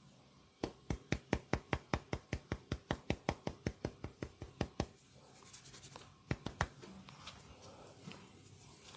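A masseur's hands striking a person's body in rapid percussive massage strokes, about five sharp slaps a second for some four seconds, then two more slaps a little later.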